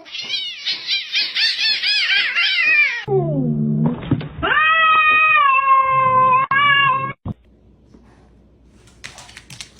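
Cat meowing: a quick run of short, repeated meows, then a low falling sound and one long held meow, which cuts off abruptly about seven seconds in. A faint background with a few clicks follows.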